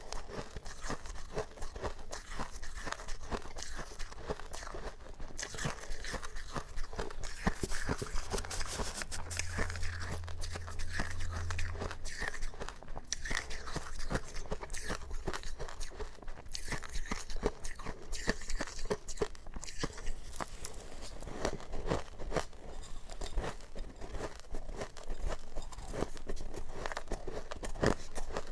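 Close-miked crunching of powdery freezer frost being bitten and chewed: a dense, continuous run of crisp crunches. A faint low hum runs under it for a few seconds midway.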